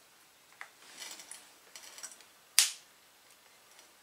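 Sharp snaps and crackles of sparking as a battery lead is touched to a starter motor on the floor, the loudest crack about two and a half seconds in; the starter does not spin. It is dead: three of its brushes are stuck, so they're probably not even making contact.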